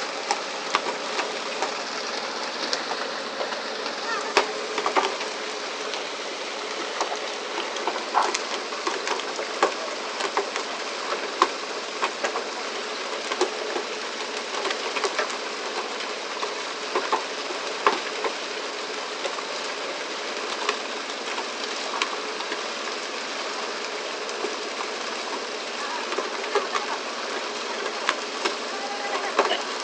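Fishing boat underway at sea: a steady rush of engine and water, with sharp knocks and slaps scattered irregularly through it.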